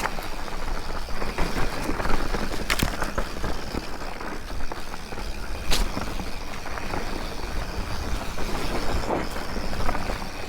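Mountain bike rolling fast down a rough dirt trail: steady tyre and wind noise with a few sharp clanks from the bike over bumps.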